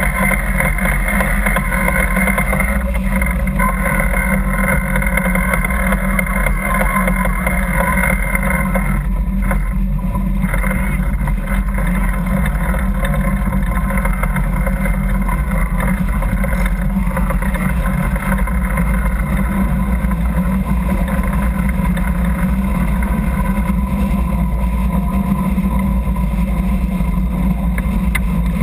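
Steady, loud rush of a sailing yacht under way: wind and water streaming past the heeling hull, with a low steady hum underneath.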